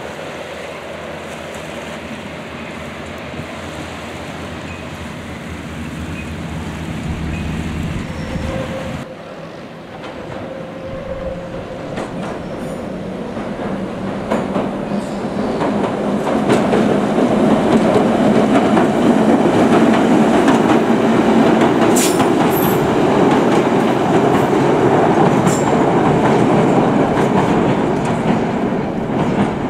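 Hovercraft running at speed, a steady hum with a rush of noise. About nine seconds in it gives way to the Ryde Pier train, ex-London Underground tube stock, running along the pier. The train grows louder as it nears, with sharp metallic clicks from its wheels on the track near its loudest.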